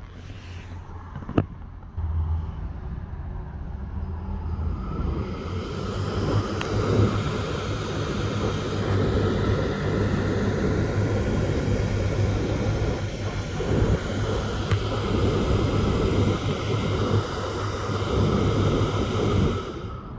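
Hybrid car's drive-battery cooling fan, commanded on from a diagnostic scan tool: a sharp click about a second in, then the fan starts, speeds up over a few seconds, runs steadily with a whirring hum, and stops shortly before the end.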